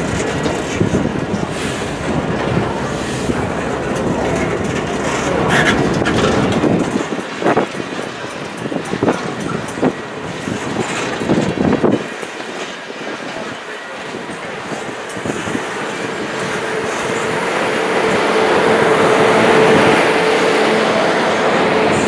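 Railway cars rolling past at close range, their wheels clicking and knocking over the rail joints. In the second half a steady squeal from the wheels comes in and grows louder toward the end.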